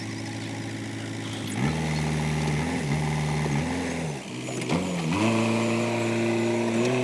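JCB 3DX backhoe loader's diesel engine idling, then revved up and down several times between about one and a half and five seconds in, then held at higher revs.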